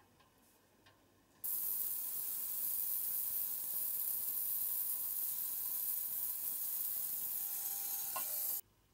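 Ultrasonic cleaner running with its bath: a steady high hiss from the cavitating liquid. It starts suddenly about a second and a half in and cuts off suddenly near the end.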